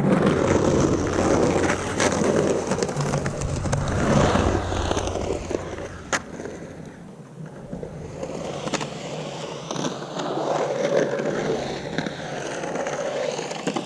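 Santa Cruz Slime Ball Vomits skateboard wheels (97a urethane) rolling on concrete as the board carves around a bowl, the rolling noise swelling and fading with speed and dropping quieter around the middle. A sharp click sounds about six seconds in.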